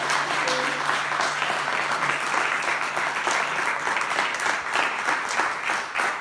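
Small audience applauding, many pairs of hands clapping together steadily.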